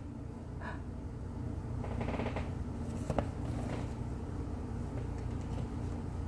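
A paper picture book being handled and its pages moved: a couple of brief paper rustles and one sharp tap about three seconds in, over a steady low room hum.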